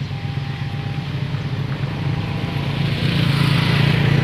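Motorcycle engine running, getting louder about three seconds in as it approaches.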